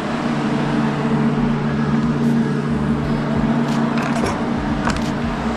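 Large barn fan running with a steady hum. A few short sharp clicks come in the second half.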